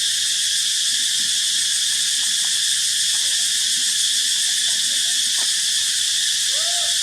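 Dense, steady insect chorus: a continuous high shrill drone with no pauses. A few faint arching squeaks come in near the end.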